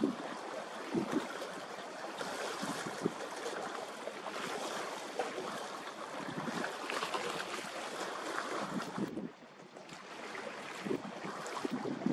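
Wind buffeting the microphone over the steady wash of the sea, with irregular low thumps from gusts; the noise drops away briefly about nine seconds in.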